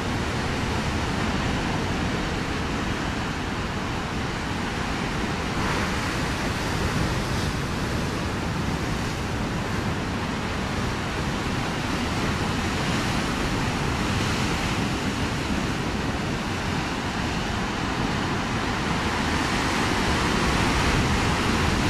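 Ocean surf breaking on a rocky shoreline: a steady, loud wash of crashing and churning water, swelling as bigger waves break about six seconds in, again midway, and most strongly near the end.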